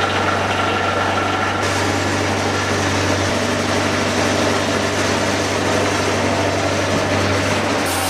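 Heavy machinery running steadily: an engine's low drone under a constant mechanical rush, which turns brighter and hissier about a second and a half in.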